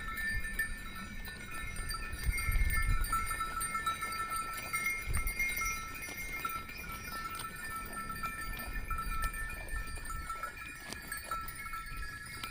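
Bells on a grazing flock of sheep and goats, clinking and ringing steadily, with low rumbles on the microphone about two and five seconds in.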